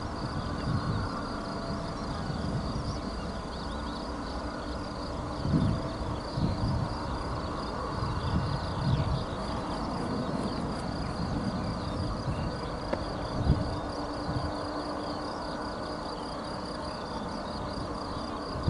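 Field insects chirring steadily in a high, pulsing buzz over a distant, steady jet rumble from a Boeing 777F's GE90 engines at takeoff power, with a few short low thumps.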